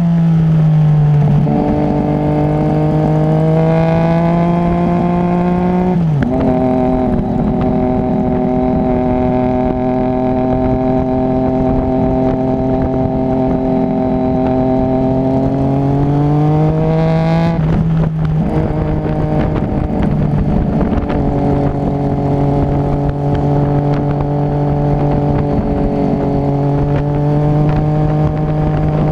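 Motorcycle engine under way at steady cruising revs. The pitch shifts sharply about six seconds in, climbs from about sixteen seconds, then shifts sharply again near eighteen seconds before holding steady.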